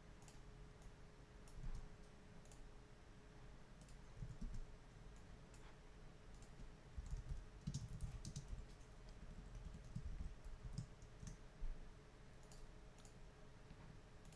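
Faint computer keyboard typing: scattered single keystrokes, with a quick run of them about halfway through.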